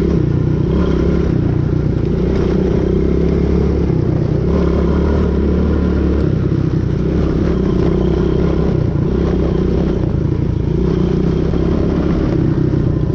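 ATV engine running as the quad is ridden, its note shifting a little with the throttle.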